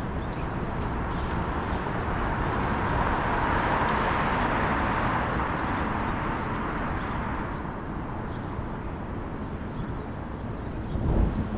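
City street noise with a vehicle passing, swelling and fading over several seconds, over wind rumbling on the microphone. Walking footsteps tick along about twice a second, and a gust knocks the microphone briefly near the end.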